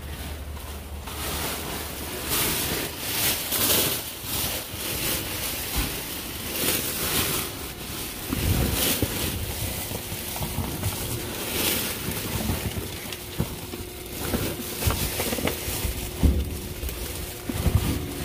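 Irregular rustling and knocking of items and bags being handled and moved about.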